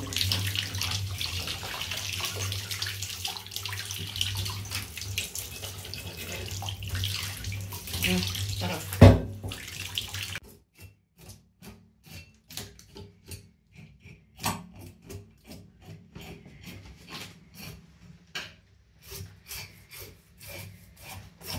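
Water running from a handheld shower head onto a whole fish in a bathtub, rinsing it, with one loud knock about nine seconds in. The water cuts off suddenly about ten seconds in, followed by a string of light taps and scrapes on the fish.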